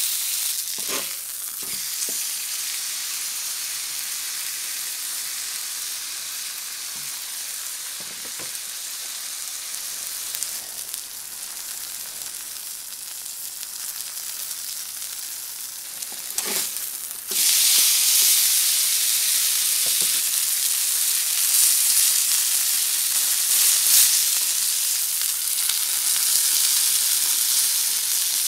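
Thick beef steak frying on a hot flat griddle: a steady sizzle, with a few faint taps. The sizzle gets clearly louder about two-thirds of the way through.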